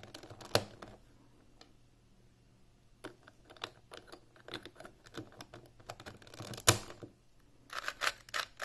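Hard plastic pieces of an Alpha V 3x3 speedcube clicking and snapping as the cube is put back together by hand. There is one sharp, louder snap about two-thirds through and a quick run of clicks near the end.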